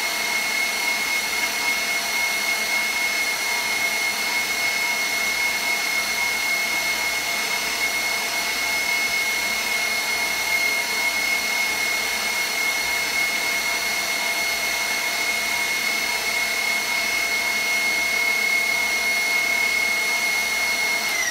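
KitchenAid stand mixer motor running at high speed, driving a pasta press attachment that is extruding dough. It gives a steady whine with a strong high tone. At the very end it is switched off and the whine starts falling in pitch.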